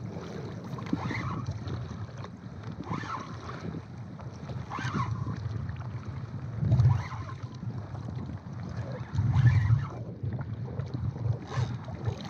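Sea water lapping and splashing against a kayak hull and dangling feet, with wind buffeting the microphone. There are two louder low rushes in the second half.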